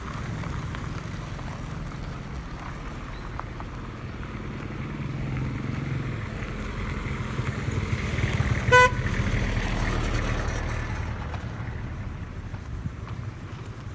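Road traffic: vehicle engines run steadily and swell as a vehicle passes. One short car horn toot comes about two-thirds of the way in and is the loudest sound.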